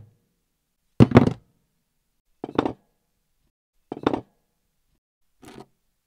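Foley of small objects knocking down onto a wooden surface: four separate short clattering knocks about a second and a half apart, the first loudest and the last faint.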